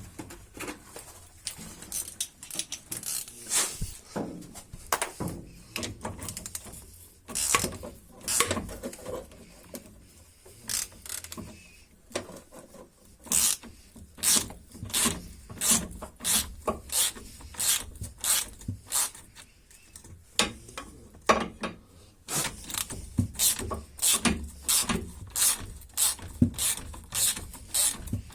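A 19 mm ratchet wrench clicking in spells of quick strokes as it tightens the nut on a new stabilizer link, with some metal rubbing between the spells.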